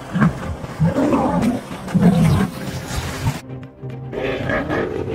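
Lion growls and roars, several rough calls in the first three seconds, over background music. The growls break off about three and a half seconds in, and the music carries on.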